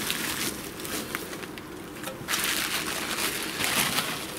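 Clear plastic bag and bubble wrap crinkling as a boxed metal antenna tuner is handled and unwrapped, louder from about halfway through.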